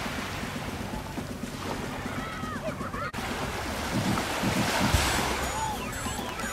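Calm sea water lapping and sloshing around a wader, with wind buffeting the microphone. Low sloshing surges come about four to five seconds in.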